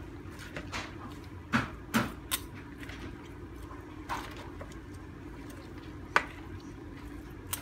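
Salad being tossed with metal utensils in a bowl: several sharp clicks and taps of the utensils against the bowl, the loudest about two seconds in and again near six seconds, over a steady low hum.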